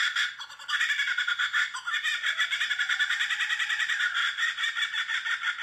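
Laughing kookaburra giving its laughing call: a long run of rapid cackling notes, with a brief break about half a second in.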